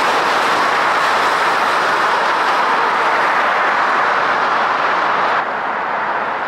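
Subway train running on an elevated steel track, a steady dense noise of wheels on rail. About five seconds in it cuts off abruptly to quieter, steady city ambience.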